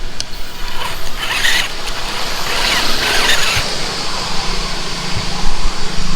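Small electric winch on an RC scale crawler reeling in its line with a gritty gear whir in two short spells, hauling the truck up a slope it cannot climb under its own power, then a low steady motor hum.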